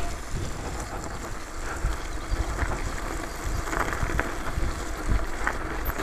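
Mountain bike riding over a snow-covered track: wind noise on the camera's microphone over an uneven low rumble from the tyres and bike.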